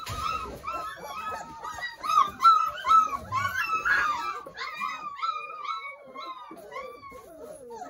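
31-day-old Doberman puppies whining and squealing: many short, high-pitched cries overlapping one another, thinning out near the end.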